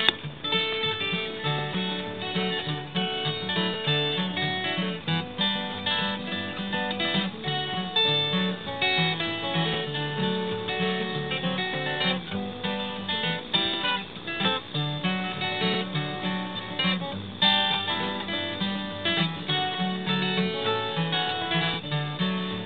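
Acoustic guitars picked and strummed together, playing an old-time tune as an instrumental passage with no singing.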